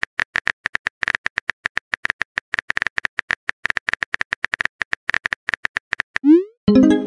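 Simulated phone keyboard clicks from a texting-story app as a message is typed, a fast even run of about eight clicks a second. Near the end the typing stops and a rising swoosh and a short tone follow as the message is sent.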